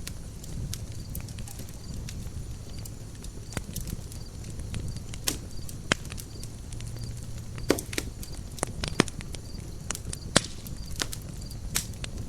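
Wood campfire crackling: irregular sharp pops and snaps of burning wood, a few louder than the rest, over a low steady rumble of the flames.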